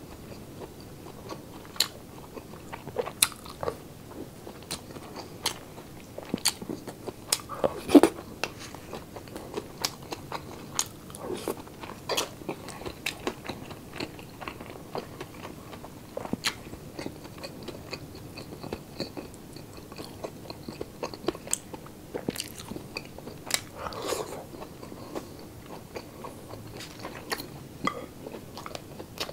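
Close-up mouth sounds of chewing crunchy pork sisig (chopped pig ear and jowl) with rice: irregular sharp crunches and wet chewing, with louder crunches about 8 seconds and 24 seconds in.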